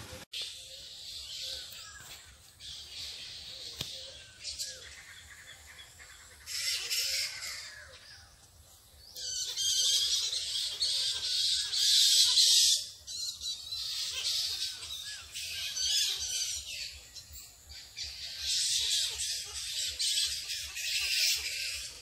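Roosting flying foxes (fruit bats) screeching and chattering in a dense, high-pitched din that comes in surges, loudest from about nine to thirteen seconds in and again near the end.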